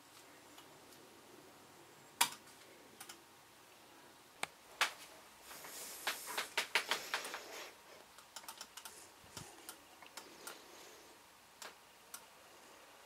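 Typing on a laptop keyboard: a few single sharp key clicks, then a quick run of keystrokes about six seconds in, followed by lighter scattered taps.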